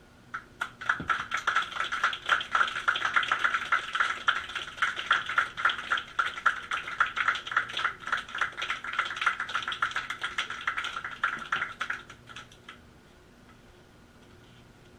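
Live circuit-bent noise electronics putting out a dense, rapid stream of crackling clicks through the amp. It stops suddenly near the end, leaving only a faint hum.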